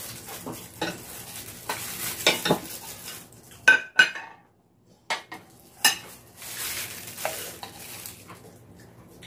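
Metal spoon and chopsticks clinking and scraping against ceramic dishes and a pan, with two sharp ringing clinks about four seconds in. Under them, braised pork feet and a vegetable pancake sizzle in the pan, which is still hot after the burner was turned off.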